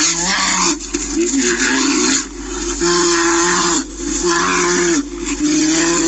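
Brown bears fighting, growling and roaring loudly in a run of bouts about a second long, with short breaks between them.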